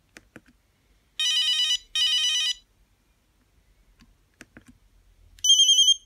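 Nokia 8210 playing short ringtone previews through its buzzer as its menu keys are pressed. A few soft key clicks, then two half-second bursts of a trilling ring back to back about a second in, and a loud warbling ring for about half a second near the end that cuts off.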